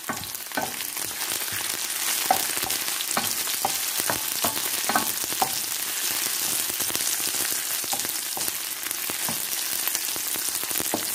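Sliced onions and garlic sizzling in hot oil in a pan, stirred, with scattered light clicks and scrapes of the stirring, mostly in the first half.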